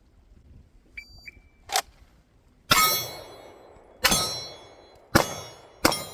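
Electronic shot timer beeps once, about a second in, then a pistol fires: a small sharp crack, then four loud shots roughly a second apart, each followed by ringing from the steel targets being hit.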